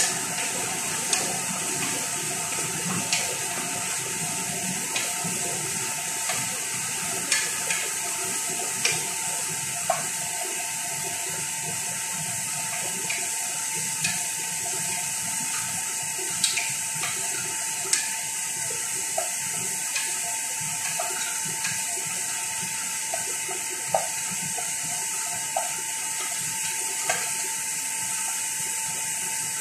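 A wooden spoon stirring food in a pot on a gas stove, knocking against the pot every few seconds, over a steady hiss of the food cooking.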